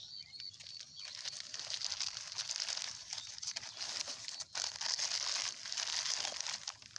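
Old plastic crinkling and rustling as it is picked up and handled, a dense crackle that is loudest in the middle and fades near the end.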